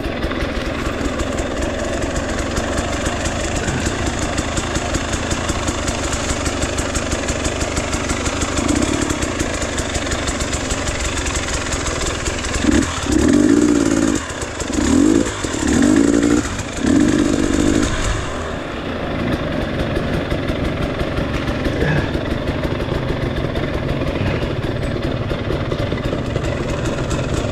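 Dirt bike engine running at low speed on a tight trail, with several short bursts of throttle about halfway through.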